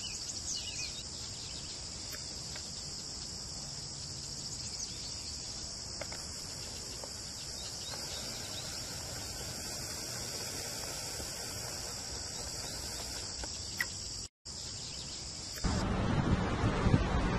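Outdoor summer ambience: a steady high-pitched chorus of insects, with a few short bird chirps about a second in. Near the end it cuts out briefly and a louder rushing noise takes over.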